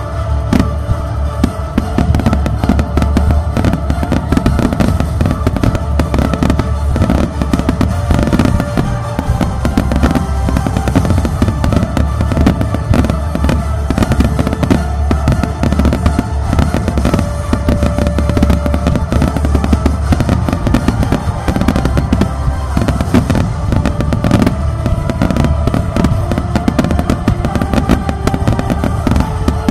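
Aerial fireworks bursting in a dense, rapid barrage of reports and crackle, with accompanying music playing steadily beneath.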